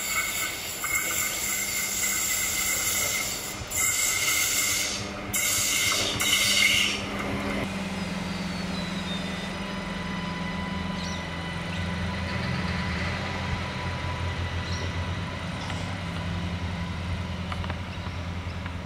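Adelaide Metro 3000-class diesel railcar passing on curved track: loud wheel-on-rail noise with a steady high squeal for the first several seconds, then a steady low diesel engine drone as the railcar runs into the station.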